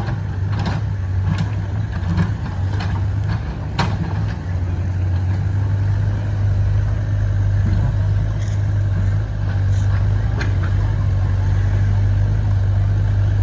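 Diesel engine of an XCMG XE60WA wheeled excavator running steadily under work, with a string of sharp knocks in the first four seconds and a couple more about ten seconds in.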